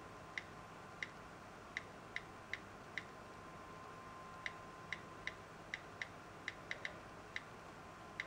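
iPod touch on-screen keyboard key clicks: about sixteen short, faint, high clicks at uneven spacing as letters are typed one by one.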